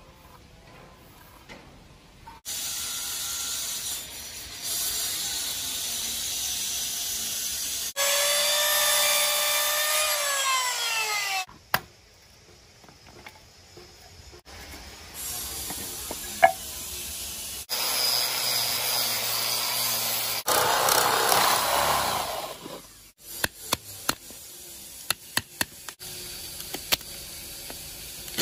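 Electric miter saw running and cutting wooden boards in several short edited bursts, its motor whine falling once as the blade spins down after a cut. Near the end comes a run of sharp clicks as a chisel cuts into a small wooden block.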